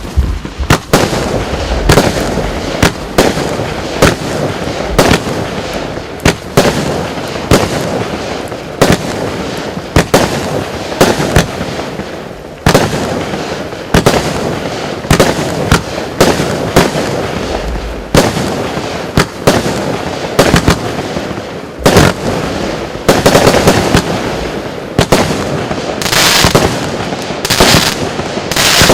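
Lesli 'Chainsaw Box' 86-shot fireworks cake firing: a fast string of sharp shots, about one to two a second, over continuous heavy crackling. The crackle grows brighter and hissier near the end.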